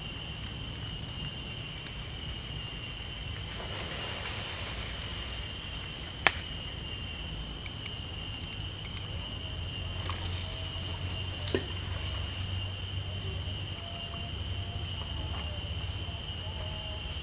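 Steady chorus of insects in riverside tropical vegetation: several high-pitched drones at different pitches, going on without a break. A single sharp click sounds about six seconds in, and a softer knock a few seconds later.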